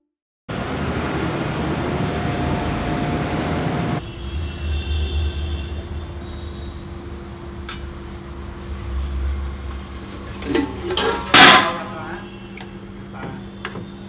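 Busy street-food stall ambience with a steady hum and background noise, louder for the first few seconds, then a few sharp clicks of steel utensils and a loud clatter of a serving spoon on a steel plate about eleven seconds in.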